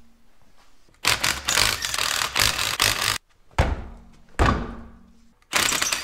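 Cordless Ryobi impact wrench hammering on a wheel's lug nuts for about two seconds, then two heavy thuds, then the impact wrench starting again near the end.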